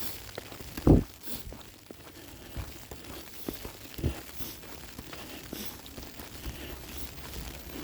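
Falling snow ticking and crunching, scattered irregular ticks over a faint hiss, with a soft thump about a second in and another about four seconds in.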